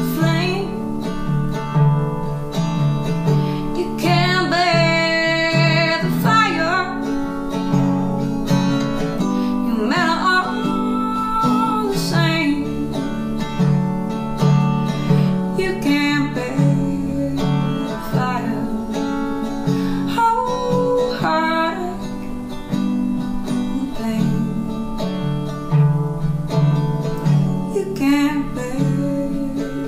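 Resonator guitar played steadily, with a woman singing over it in several phrases.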